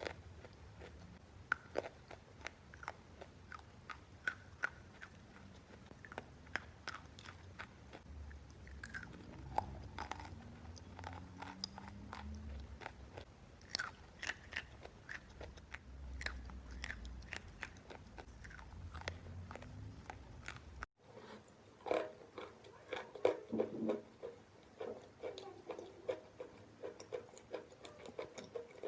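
A person biting and chewing chalk and clay up close: a long run of sharp, crisp crunches and clicks. After a brief break about two-thirds through, the crunching comes denser and louder.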